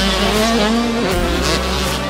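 Several 85cc two-stroke motocross bikes running at high revs, their engine pitches rising and falling as they power through and over a jump.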